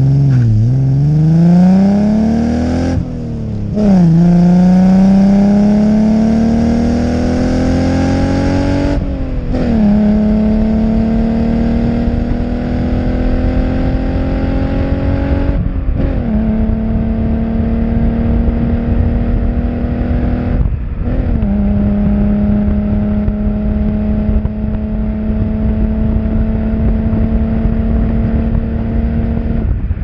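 Alfa Romeo GTV6's 2.5-litre V6 heard close at the exhaust, accelerating hard through the gears: the revs climb and drop back at four upshifts, about 3, 9, 15 and 21 seconds in. Each gear pulls longer and more gently, and in the last it settles to a steady cruise with road noise beneath.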